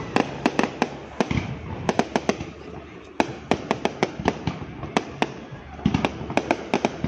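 Fireworks display: aerial shells bursting one after another, many sharp bangs at irregular intervals over a steady low rumble.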